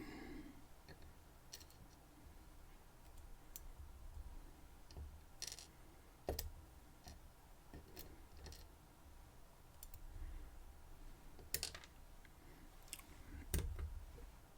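Light, scattered clicks and taps of small metal lock parts being handled: sliders being taken out of a disassembled EVVA EPS lock cylinder and set down, about a dozen sharp ticks at irregular intervals.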